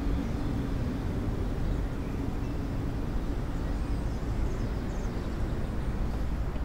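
Outdoor background sound: a steady low rumble with a few faint, high chirps in the middle.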